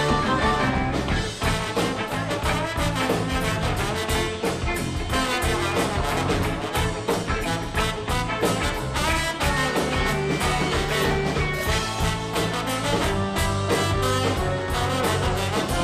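Live band playing an instrumental passage of a rock song, with trombone over keyboards, electric bass and drum kit.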